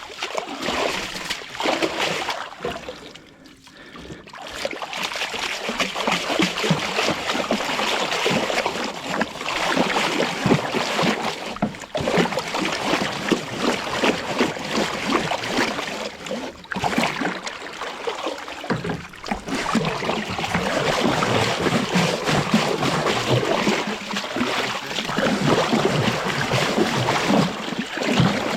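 Water splashing and sloshing against a small boat's hull as it is tipped over and washed in the river, continuous and irregular with a few brief lulls.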